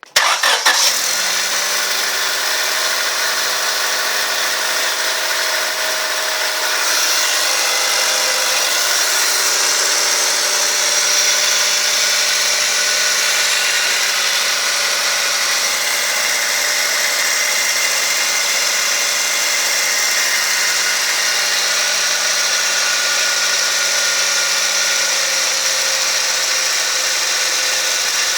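1997 Honda Civic EX's four-cylinder engine starting and then running steadily at idle, with several steady high-pitched tones over it. This is the strange noise whose source the owner cannot place.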